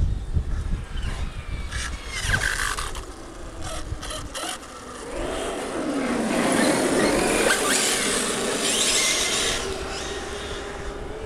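Radio-controlled Hobao VS2 buggy driving on asphalt, its tyres scrubbing and squealing as it turns and passes close. The sound is loudest around the middle and fades near the end. Wind rumbles on the microphone at the start.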